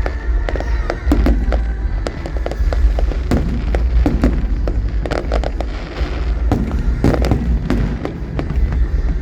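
Fireworks display: a dense, irregular run of sharp bangs and crackles over a continuous deep low rumble of bursting shells, with music playing underneath.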